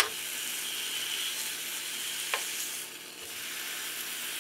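Raw bacon strips sizzling in a hot nonstick frying pan as they are laid in and moved about with metal tongs. Sharp clicks of the tongs against the pan come at the start and once more about two seconds in.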